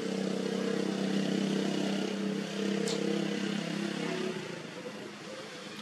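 A motor vehicle engine running at a steady pitch, dying away about four seconds in.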